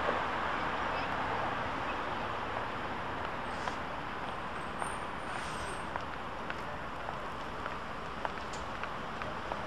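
Street ambience with a diesel city bus pulling in and slowing to a stop, its engine a steady rumble under traffic noise, with a few small clicks.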